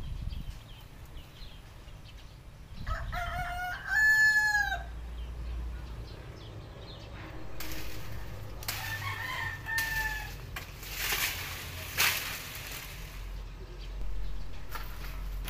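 A rooster crows loudly about three seconds in, and a fainter crow follows around nine seconds in. A few short rustling bursts of noise come after.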